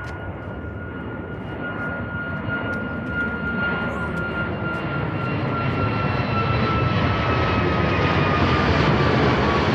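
Jet engines of a departing Southwest Boeing 737 airliner, growing steadily louder as it passes. A high, steady fan whine sits over the rumble and slowly falls in pitch.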